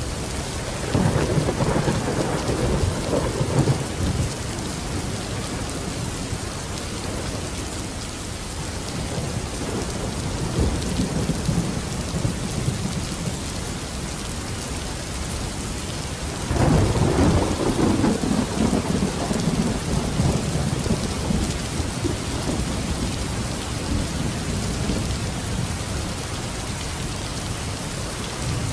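Steady rain falling, with two low rolls of thunder: one about a second in lasting a few seconds, and a longer one a little past the middle.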